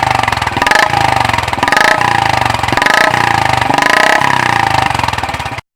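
Royal Enfield single-cylinder engine running through an aftermarket silencer with a steady, rapid exhaust beat, stopping abruptly near the end.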